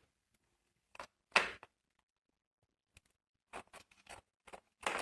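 Cat gnawing and tearing at something: scattered short crunches and clicks, the loudest about one and a half seconds in and a quicker run of them near the end.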